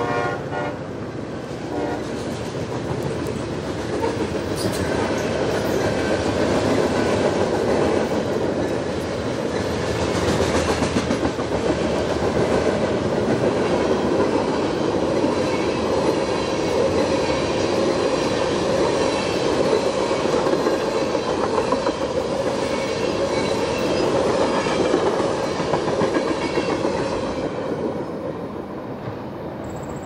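Freight train's covered hoppers and tank cars rolling past close by, wheels clattering steadily over the rail joints. A diesel locomotive's horn chord cuts off about half a second in.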